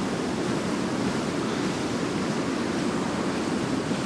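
Fast-flowing river water rushing, a steady even noise.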